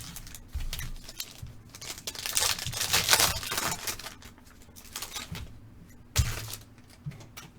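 Plastic wrapping on a sealed box of trading cards being torn and crinkled as the box is opened, loudest for a second or so in the middle, with light handling clicks and a soft knock about six seconds in.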